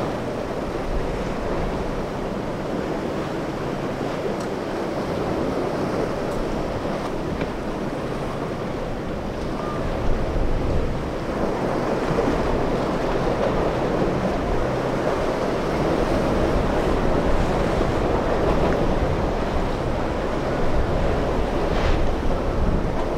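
Surf and breaking waves with wind buffeting the microphone, getting a little louder from about ten seconds in.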